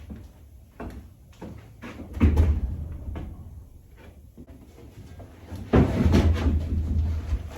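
Irregular knocks and thumps, with a loud thud about two seconds in and a heavier, longer run of bumping about six seconds in.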